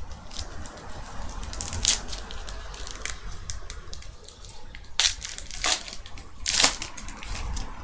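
Foil trading-card pack wrapper crinkling and tearing as it is opened by hand. It gives a run of crackles, with sharp louder crackles about two seconds in and three more near the end.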